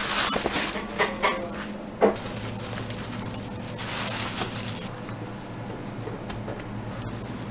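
Plastic bag crinkling and rustling as gloved hands pull out and handle stacks of sliced pork belly, with one sharp knock about two seconds in. A low steady hum runs underneath.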